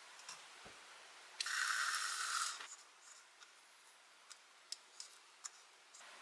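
Brief steady hiss of tap water running into a small plastic cup at a stainless-steel sink, about a second and a half in, to wet powdered gecko food, followed by a few light clicks of a plastic spoon against the cup.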